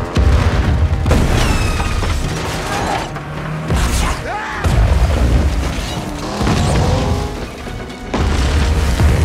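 Explosion booms cut into bass-heavy action soundtrack music. The heaviest hits come about a second in, around five seconds in and near the end, with sliding tones between them.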